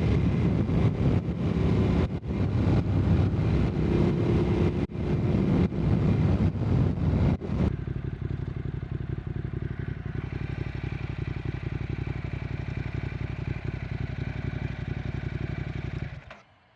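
Motorcycle engine running on the move with wind buffeting the pocket microphone, then abruptly settling into a steady idle about halfway through. The engine is switched off near the end.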